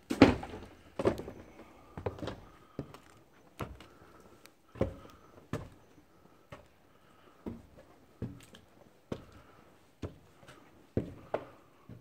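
Footsteps, a separate thud about every second, over debris and then on a stairway; the loudest steps fall just after the start.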